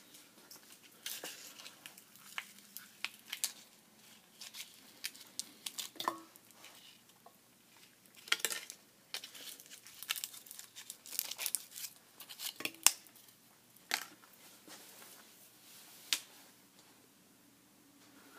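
Liquid heating in a glass vessel, crackling and popping irregularly as bubbles form and rise, with a few louder pops over a faint low hum.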